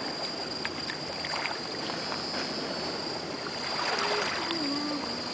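Small waves washing on a pebbly shore as a steady rushing hiss, with the constant high-pitched drone of crickets.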